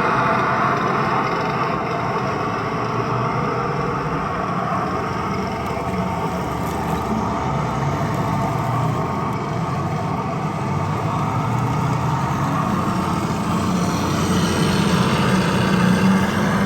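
Armortek large-scale model tanks running, a steady engine sound that grows a little louder near the end.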